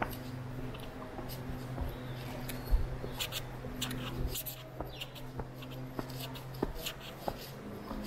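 Footsteps scuffing along a path, at about a step every half second or so, with one heavier thump a little under three seconds in, over a steady low hum.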